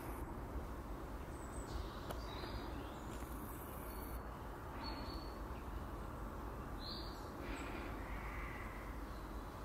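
A bird calling several times, short high calls a second or two apart, over a steady background hum.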